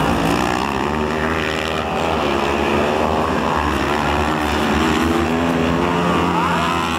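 Several 500 cc kartcross buggies racing on a dirt track, their engines revving up and down as they pass, with a climbing rev near the end.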